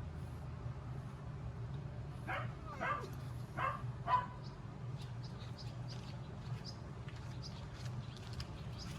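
Four short, pitched calls from a domestic animal in quick succession, about two seconds in, over a steady low hum; faint high chirps follow in the second half.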